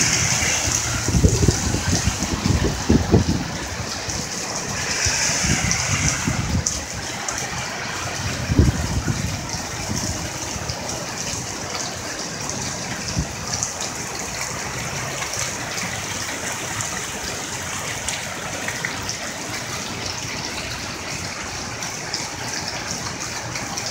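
Heavy rain pouring steadily onto a flooded street. A few louder surges in the first nine seconds fit car tyres swishing through standing water.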